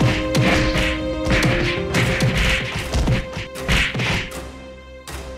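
A quick run of punch-and-whack hit sound effects, about three a second, over background music; the hits thin out and quieten near the end.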